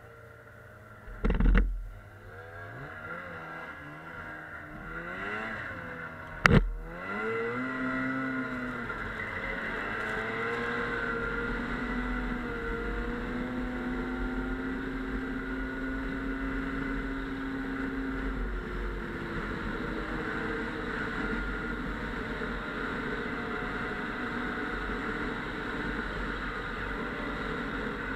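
Snowmobile engine speeding up, then running steadily at speed with its pitch wavering a little. Two loud thumps come about a second and a half in and about six seconds in.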